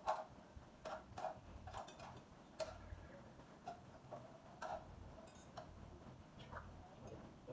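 Faint, irregular clicks and clinks of eating utensils tapping against bowls, plates and a pan, about a dozen over several seconds.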